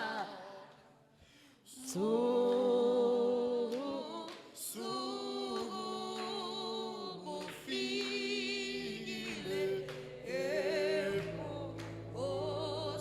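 Slow Zulu hymn line sung with long held, wavering notes. The singing drops away briefly about a second in, then resumes and carries on.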